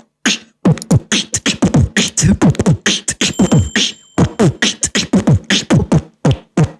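A beatboxer's mouth-made sound effect: a fast run of short, sharp vocal strokes, many sliding quickly down in pitch, broken by brief pauses.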